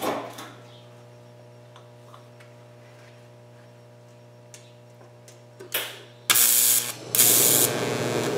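TIG welder with a low steady hum, then about six seconds in the arc is struck with a sudden loud high-pitched hiss, cuts out for a moment, restarts, and settles into a steady arc hiss as a bead is run at about 40 amps on a thin high-carbon bandsaw blade.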